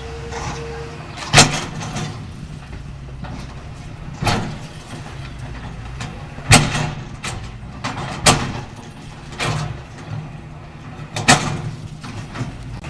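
Caterpillar 325L excavator's diesel engine running steadily under work, with about five loud, sharp bangs and crashes a couple of seconds apart, plus smaller knocks, as building debris is struck and broken in demolition.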